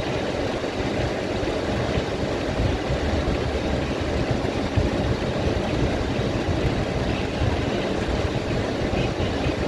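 Rain falling on a car's roof and windshield, heard from inside the cabin, a steady dense hiss over a low rumble.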